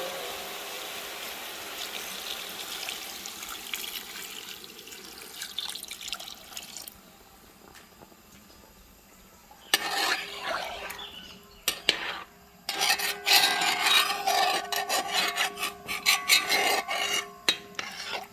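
Water poured into a hot stew pot, hissing and sizzling and fading over the first several seconds. After a short lull, from about ten seconds in, comes a run of irregular rasping scrapes and knocks.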